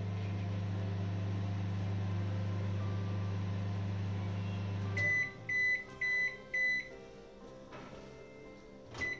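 IFB 30SC4 convection microwave oven running with a steady hum that stops about five seconds in as the timer runs out, followed by four short high beeps signalling the end of the cycle. A click and one more short beep come near the end.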